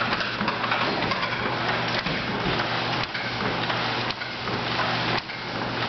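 Alldays & Onions two-stage forge bellows being pumped by its lever, blowing air into a coal forge fire: a steady rushing noise that dips briefly about once a second in the second half.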